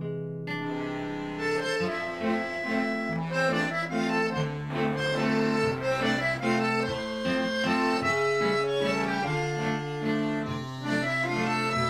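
Background music led by an accordion, with long held bass notes under a moving melody.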